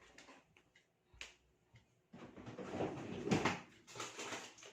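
Handling noises while food is being prepared: a single click about a second in, then about two seconds of rustling, crinkling noise.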